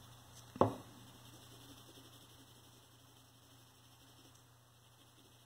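Faint room tone with a low steady mains hum, and one short sound about half a second in.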